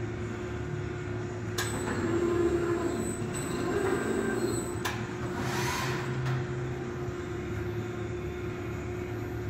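RAS Turbobend Plus 62.30 CNC sheet-metal folding machine running a 90-degree fold cycle: a steady motor and drive hum, with a sharp click about a second and a half in. The beam drive swells for a couple of seconds after that click, then comes a second clunk near five seconds and a short hiss just after it.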